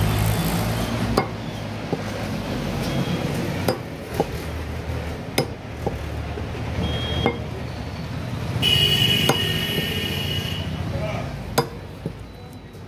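Sharp, irregular knocks of a butcher's cleaver striking goat trotters on a wooden log chopping block, about seven strikes spread out, over a steady low rumble. A high steady tone sounds for about two seconds past the middle.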